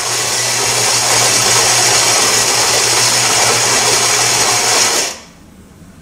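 Philips 1200 Series espresso machine's ceramic grinder grinding coffee beans at the start of a brew cycle: a loud, steady whirr with a low hum that cuts off suddenly about five seconds in, after which the machine runs on much more quietly.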